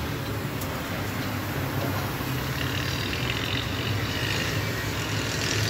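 Compressed-air paint spray gun hissing steadily while spraying, over the low, even hum of a running air compressor.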